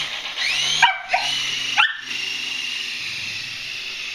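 Small toy RC helicopter motors whining. They rev up in quick rising sweeps that level off, cut out abruptly twice, then hold a steady high whine over a low rotor hum.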